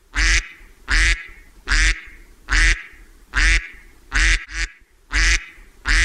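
Mallard duck quacking over and over, about eight loud, short quacks evenly spaced a little under a second apart, with one shorter quack in between near the middle.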